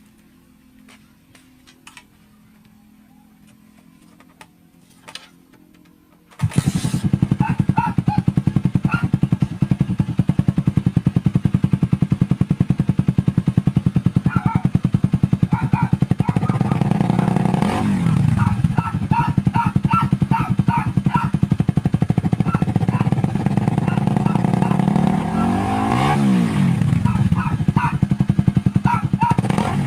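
Suzuki Raider 150's single-cylinder four-stroke engine running through an aftermarket Apido exhaust pipe with no silencer insert. It comes in suddenly about six seconds in, idles with a fast, even exhaust pulse, and is revved up and back down twice.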